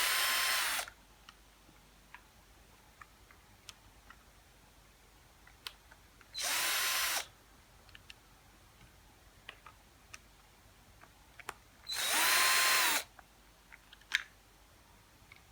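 Power drill run in three short bursts about six seconds apart, each about a second long. Its motor whine rises as it spins up and drops as it stops. Light clicks and taps fall between the bursts.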